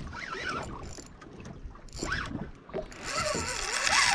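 Boat at sea: low steady rumble with wind and water hiss, growing into a louder rush of noise about three seconds in, with faint indistinct voices.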